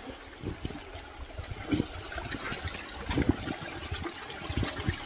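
Running water, a steady wash, with irregular low thumps scattered through it.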